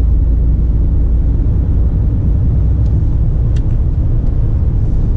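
Mercedes-Benz truck heard from inside the cab while driving: a steady, loud low rumble of engine and road noise.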